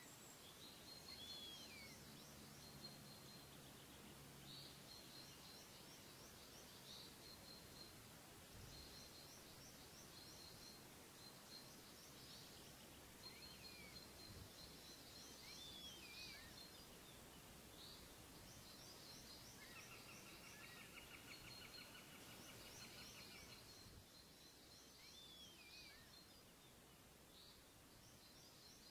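Faint birdsong: a small songbird repeats a short, high, trilling phrase every couple of seconds, with occasional short falling whistles. About two-thirds of the way in, a buzzy trill lasts a few seconds.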